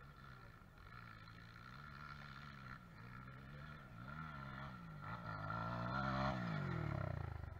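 Dirt bike engine labouring up a steep grassy hill, its pitch rising and falling as the rider works the throttle. It grows louder as the bike approaches, then drops in pitch and eases off near the end.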